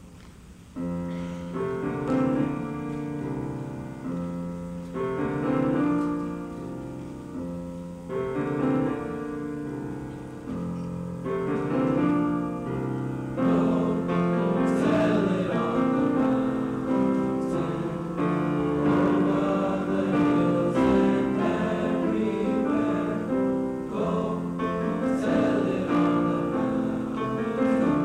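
School choir singing with piano accompaniment. The music starts about a second in and grows louder about halfway through.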